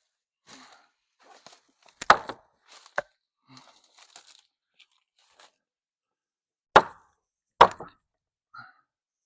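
Sharp knocks and cracks of nailed boards being worked loose while an old corral is torn down: two loud ones about two and three seconds in, two more near seven and seven and a half seconds, with lighter crunching and scraping between.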